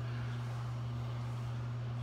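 Steady low electrical hum over a faint even hiss, typical of a bathroom exhaust fan running.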